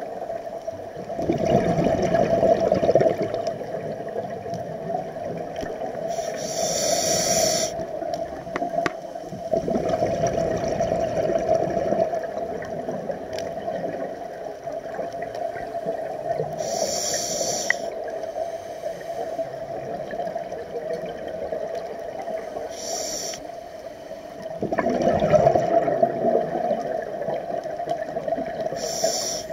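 Scuba diver breathing through a regulator underwater: three louder rushes of exhaled bubbles, with short hisses in between, over a steady low hum.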